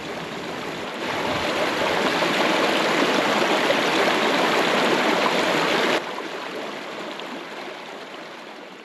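Small mountain stream running over rocks in a little cascade: a steady rush of water that grows louder about a second in, drops suddenly at about six seconds, and then fades away.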